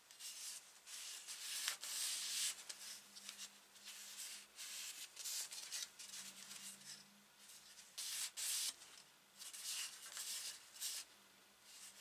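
Gloved hands rubbing and handling a wooden saw handle: a series of short, irregular scratchy rubbing strokes.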